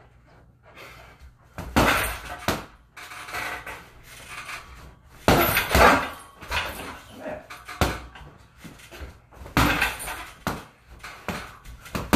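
Punches landing on an Everlast heavy bag, in combinations of a few quick thuds with gaps of a few seconds between them.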